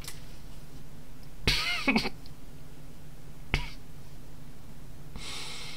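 A man's short, cough-like bursts of stifled laughter: one about a second and a half in, a shorter one near three and a half seconds, then a breathy exhale near the end.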